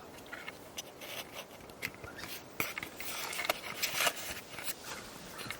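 Scattered light scrapes, rubs and clicks of close handling and shifting about, as of hands on a camera and clothing. They come thickest midway through.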